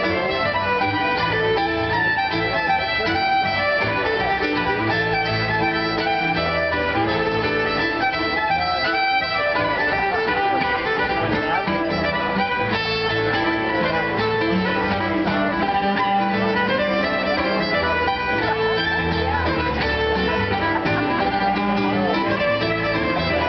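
Live Cape Breton fiddle music: a fiddle playing a fast tune over rhythmic piano accompaniment on keyboard.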